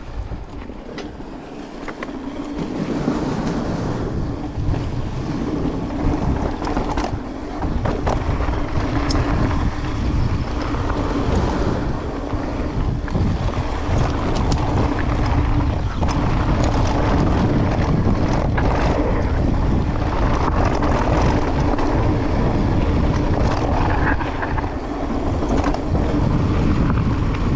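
Mountain bike running fast down a dirt trail: wind rushing over the camera microphone, with a low rumble from the tyres and a constant clatter of small knocks from the bike. It gets louder about two to three seconds in as the speed builds, then holds steady.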